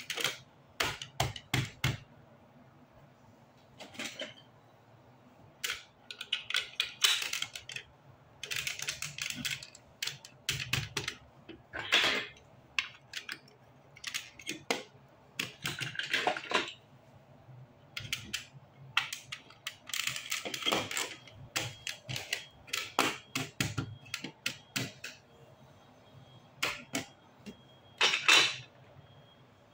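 Large plastic Lego Duplo bricks clicking as they are pressed together, clacking on the tabletop and rattling in a loose pile, in irregular bursts of clicks with short pauses between.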